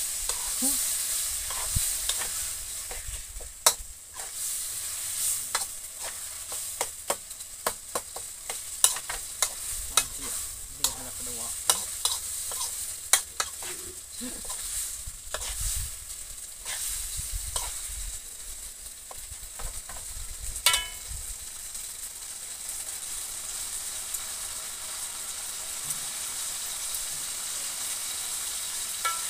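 Chili anchovy sambal sizzling in oil in a wok, with a metal spatula scraping and clinking against the wok as it is stirred. The clinks come thick and irregular at first and mostly stop about two-thirds of the way through, leaving the steady sizzle.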